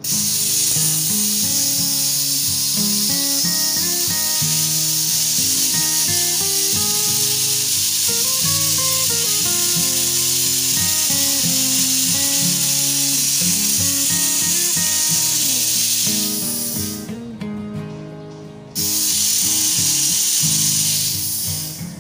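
Pressurised gas venting with a loud, steady hiss through a charging hose at an air conditioner's service valve. It cuts off abruptly for about two seconds, starts again just as abruptly, then tails off near the end.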